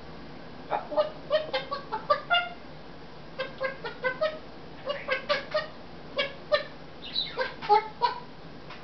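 Congo African grey parrot calling in quick runs of short, pitched notes, about five runs with brief pauses between them.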